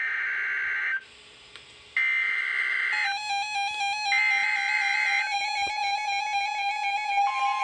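Three buzzing bursts of Emergency Alert System SAME header data, each about a second long with about a second between them, announcing a new weather radio alert. Synthesizer-like music with a steady held tone comes in about three seconds in, under the third burst, and a second, higher tone joins near the end.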